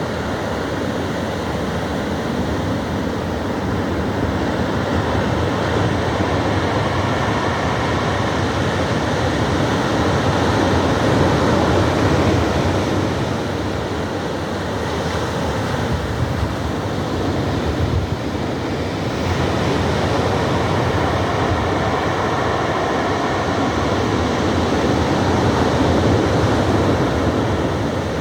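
Pacific Ocean surf breaking and washing ashore: a continuous rushing wash that swells and eases slowly as the waves come in.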